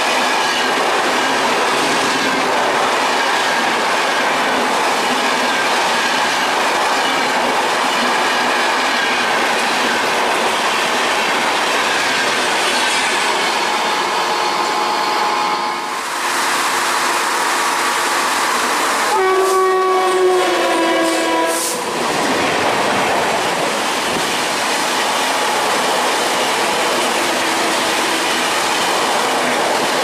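Passenger train coaches rolling past at speed with steady wheel clatter. About 19 seconds in, a WAP-4 electric locomotive's horn blows once for about three seconds, dropping in pitch as it ends, over the rushing hiss of rolling stock in heavy rain.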